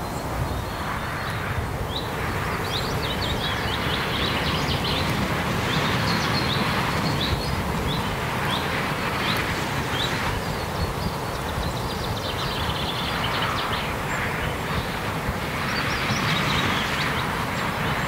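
Steady traffic noise from the A7 autobahn, swelling and easing as vehicles pass. Over it, a bird gives a run of short, high, falling notes, about two a second, through the first half.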